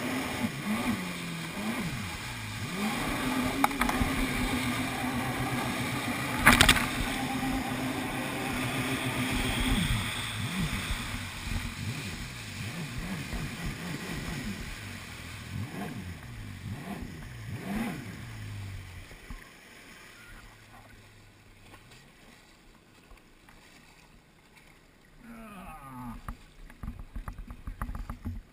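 Jet ski engine running at speed with water rushing and spray, its pitch rising and falling with the throttle, and one sharp thump about six and a half seconds in. About nineteen seconds in the throttle comes off, and the engine drops to a quiet low idle.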